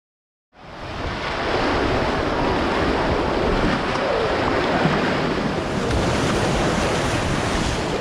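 Surf and churning, splashing water as a crowd of swimmers runs out through breaking waves, with wind buffeting the microphone. It starts suddenly about half a second in, builds over the next second, then stays loud and steady.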